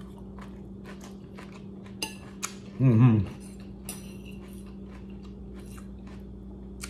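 Raw cabbage coleslaw being chewed in crisp little crunches, with a couple of sharper fork-on-plate clinks about two seconds in and a short hummed 'mm' about three seconds in.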